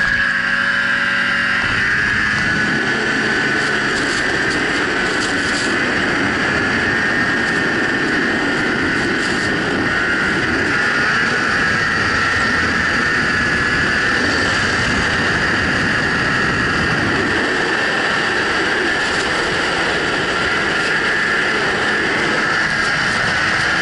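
Snowmobile engine running under way, heard on board the machine: a steady drone with a high whine over a rushing noise.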